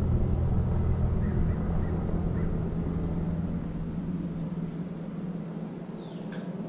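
A low engine rumble, like a passing vehicle, fading steadily away. A brief high chirp comes near the end.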